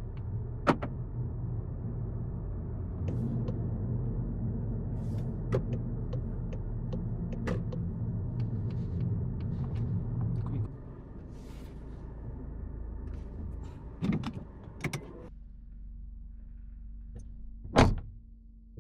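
Inside a Volkswagen Golf GTI mk7.5: a steady low engine and road rumble with scattered light clicks. The rumble drops about ten seconds in, then cuts out a few seconds later, leaving a faint steady hum. A loud click comes near the end.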